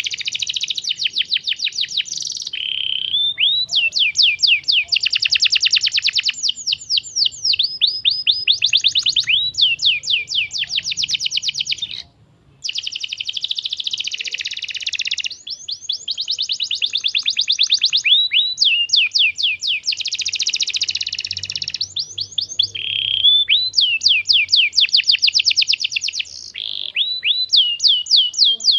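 Canary singing a long, fast song of rapid trilled phrases, one after another, with a brief pause about twelve seconds in. It is a lure song played to get other canaries to sing.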